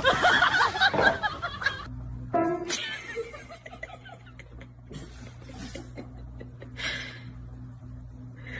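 A person laughing over background music, which cuts off about two seconds in. After that comes a quieter room with a steady low hum, a brief rising tone, and a few faint clicks.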